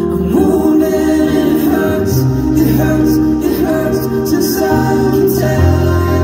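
Live music: a male singer sings a slow song into a handheld microphone over acoustic accompaniment, with long held low notes beneath his voice.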